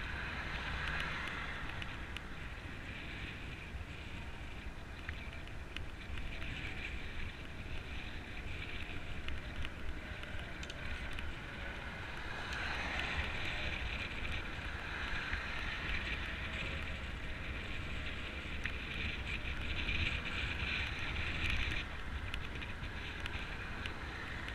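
Wind rumbling over a bicycle-mounted GoPro's microphone as the bike rolls along a paved path, with traffic hiss from cars on the road alongside, swelling a few times as they pass.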